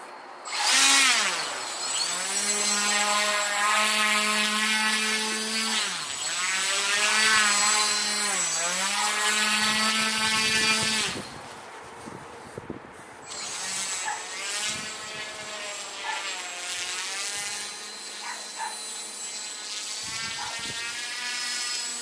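K'nex RC ski vehicle's motor whining, its pitch dipping and rising again and again as the throttle is worked. It is loud for the first half and quieter, more broken up, from about eleven seconds in.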